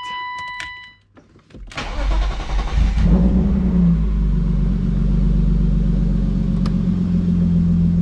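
A steady electronic warning tone cuts off about a second in. Then a BMW E36's engine is cranked by the starter, catches about three seconds in with a brief rise in revs, and settles into a steady idle. This is the first start after the idle control valve (ICV) hose was replaced to cure a rough idle.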